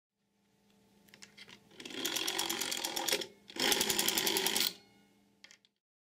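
Rotary telephone dial being pulled round to the finger stop for 0, rattling as it winds, then released: after a short break, its governor-controlled return sends out a fast, even run of clicks lasting about a second, the ten dial pulses for 0.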